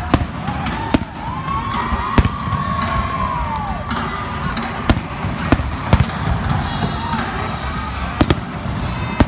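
Aerial fireworks shells bursting in a display: sharp separate bangs, about eight in nine seconds, over a steady background din.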